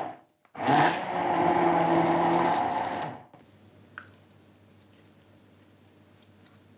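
Hand-held stick blender puréeing strawberries in a glass measuring cup: the motor stops, starts again about half a second in, runs steadily for under three seconds and shuts off. After it, a faint click and quiet liquid sounds as the juice is poured into a cup.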